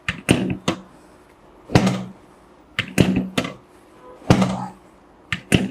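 Series of sharp thunks at uneven intervals, about eight in a few seconds, as a chiropractor delivers forceful hand thrusts along the spine of a patient lying face down on a treatment table.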